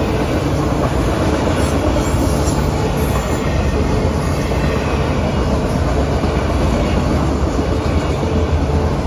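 Autorack freight cars of a CSX train rolling past: a steady loud rumble of steel wheels on the rails.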